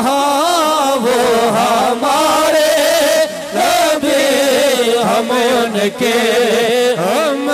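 Male voices chanting a devotional refrain in a continuous, melodic, wavering line, with a short break about three and a half seconds in.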